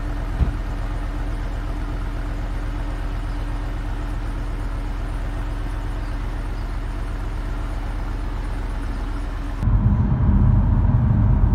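Holden HSV V8 idling steadily, heard at its twin exhaust tips, with a single click about half a second in. Near the end the sound cuts to inside the cabin with the car under way, where the engine sound is louder and stronger in the low end.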